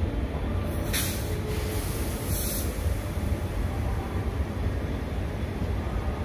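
Indian Railways passenger coaches rolling slowly past the platform with a steady low rumble, as the train pulls in. Two short hisses of air sound over it, about a second in and again about a second and a half later, typical of the coaches' air brakes.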